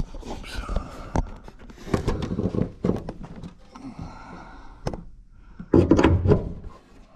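Irregular knocks and thuds of objects being handled and bumped, with a louder stretch of clattering about six seconds in.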